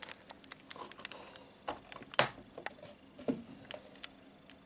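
Irregular light clicks and taps of handling against a clear plastic enclosure, with one sharper click about two seconds in.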